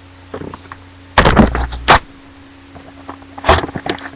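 Trading card box and packs being handled and opened: crinkling wrapper and cardboard knocks, with a loud burst of rustling about a second in and a few sharp clicks after it.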